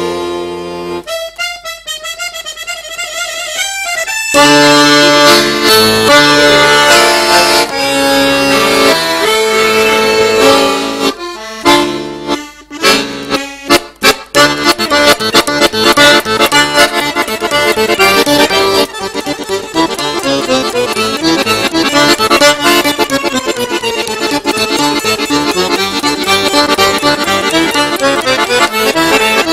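Solo piano accordion playing a lively virtuoso piece: a soft passage of wavering high notes, then full chords over the bass from about four seconds in, a run of short detached chords around the middle, and fast busy playing after that.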